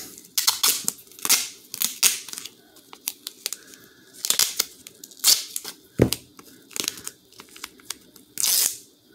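Adhesive tape being pulled off the roll in a series of short ripping strips and pressed onto a foam projectile, the loudest pull near the end. One sharp knock about six seconds in.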